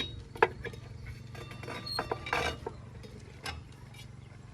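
JCB 3DX backhoe loader's diesel engine running low and steady, with a series of metallic clanks and rattles on top, the sharpest about half a second in and a cluster around two and a half seconds in.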